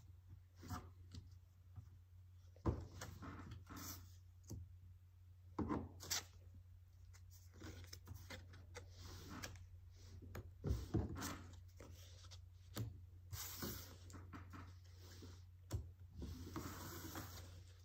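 Scattered light clicks and taps of puzzle pieces being set down and slid on a picture card on a tabletop, with brief rustles and pen scratching on paper, over a low steady hum.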